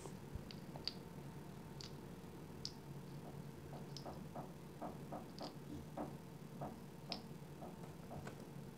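Faint small plastic clicks and taps as tiny miniature pieces are pushed into, and knock against, a small clear plastic case. Scattered sharp ticks, then a run of soft taps about twice a second from about three seconds in until near the end.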